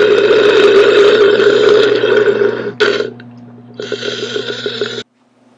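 A loud, drawn-out belch that breaks off about three seconds in, followed by a second, shorter, fluttering belch that cuts off suddenly about five seconds in.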